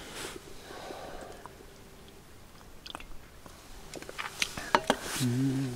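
Mouth sounds of a person tasting shochu: small sips, lip smacks and clicks. Near the end comes a short closed-mouth "hmm?", puzzled at a taste that is not what was expected.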